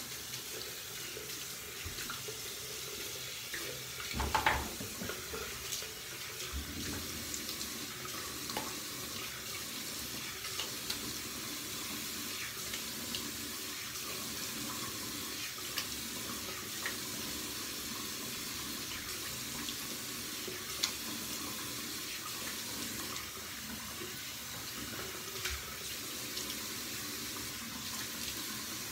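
Water running steadily from a bathroom sink tap after a wet shave, with a few short clicks; the loudest comes about four seconds in.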